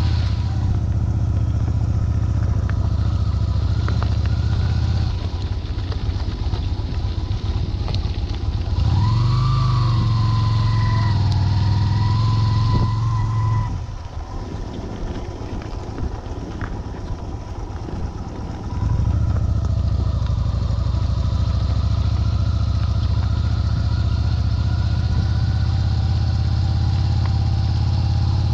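Motorcycle engine running steadily under way. About nine seconds in, the engine note rises and grows louder for a few seconds. Around fourteen seconds it drops to a quieter, thinner sound, and near nineteen seconds the steady drone returns.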